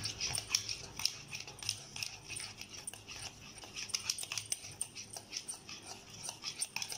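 Wire whisk beating a smooth cake batter in a bowl: quick, irregular clicking and scraping of the metal tines against the bowl.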